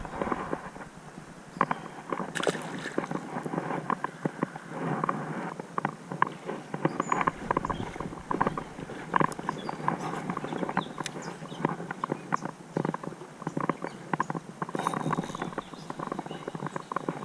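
Irregular splashing and knocking in shallow creek water, like an angler wading, with water sloshing and stones clacking underfoot.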